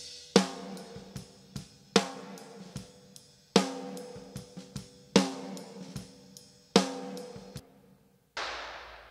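Multitrack drum recording played back through a mixing session: a snare hit about every 1.6 s on the backbeat, with kick and hi-hat hits between them. Each snare rings out with a triggered sample tail of ambience added. Near the end comes a single hissy wash that fades out, with no drum hit in it.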